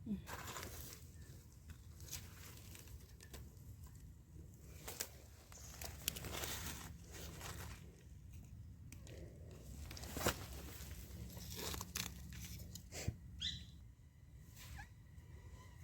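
Dry leaf litter and twigs rustling and crunching in uneven bursts, with a few sharp snaps, as someone moves through the forest floor and handles vegetation.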